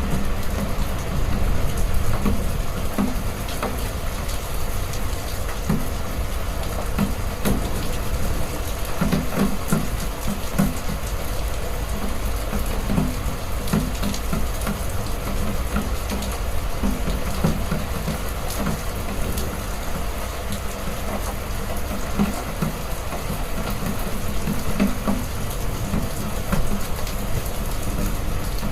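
Heavy rain pouring steadily: a dense, even hiss over a deep rumble, with irregular heavier drops thudding through it.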